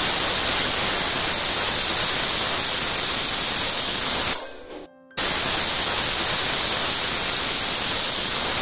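Stainless steel pressure cooker whistling twice, each a loud steady hiss of steam forced out past the whistle weight for about four seconds; the first fades out a little past four seconds in and the second starts just after five seconds. The two whistles mean the dal inside is cooked.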